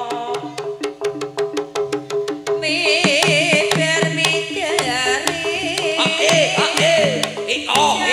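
Jaranan gamelan music: quick, even drum strokes over repeating pitched percussion notes, joined about three seconds in by a high, wavering melody line.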